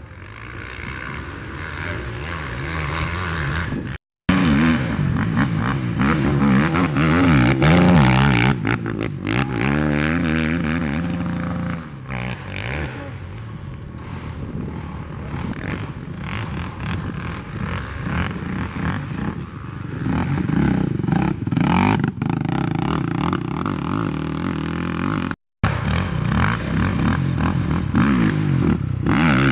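Racing ATV engines revving, their pitch rising and falling as they change throttle and gear. The sound breaks off to silence twice for a moment, about four seconds in and about 25 seconds in.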